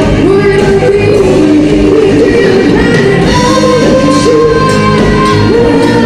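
Live band playing loudly, with singers holding long, sliding notes over the full band.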